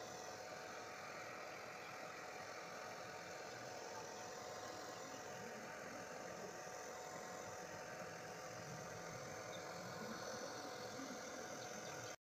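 Faint, steady background noise with a thin constant tone running through it, cutting off abruptly near the end.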